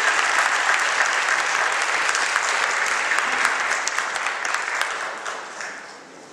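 Audience applauding, many hands clapping at a steady level, dying away over the last second or two.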